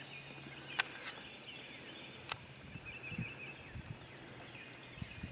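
Faint chatter of many waterfowl calling at a distance, with a couple of sharp clicks.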